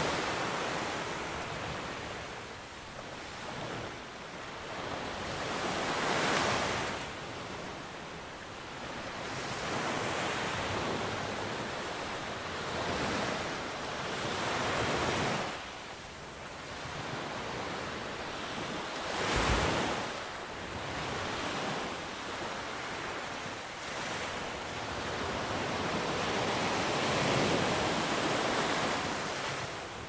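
Sea waves breaking on a sandy beach and washing up the shore, the surf swelling and ebbing every few seconds, with one sharper break about two-thirds of the way through.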